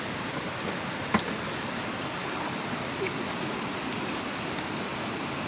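Steady rushing background noise, with one sharp tap about a second in and a few faint ticks as a ceramic rice bowl and chopsticks are handled.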